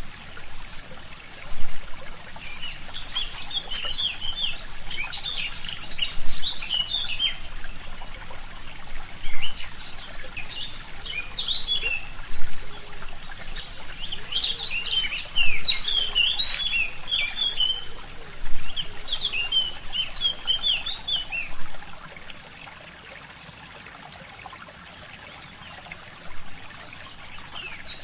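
Forest stream trickling steadily under a songbird's song: several quick phrases of rapid high chirps, a few seconds apart. Toward the end the bird stops and only the quieter trickle remains.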